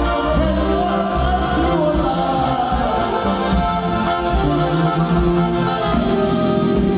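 Accordion-led Latin American band music with a steady bass line, playing continuously.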